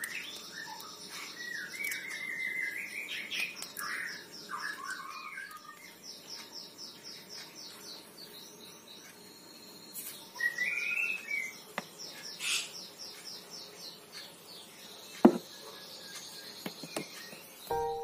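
Birds chirping in short warbling calls and an insect trilling rapidly and steadily, with one sharp click a little past the middle. Music starts right at the end.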